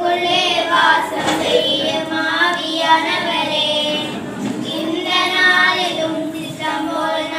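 Children singing a Tamil welcome song, drawing out long held notes.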